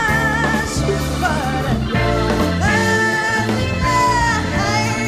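A band playing live, with a woman singing long, wavering held notes over bass and drums.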